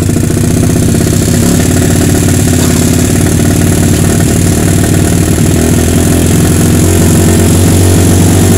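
Kawasaki KLX 150's single-cylinder four-stroke engine running steadily at a held part-throttle while the PE28 carburetor's air screw is turned out to find the highest RPM, which is how the air-fuel mixture is set. It grows slightly louder over the seconds.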